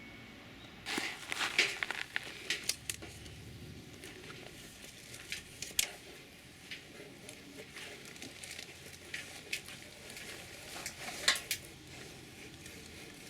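Utensils and dishes clinking and knocking together in irregular clusters of sharp clicks, with a few lighter taps between.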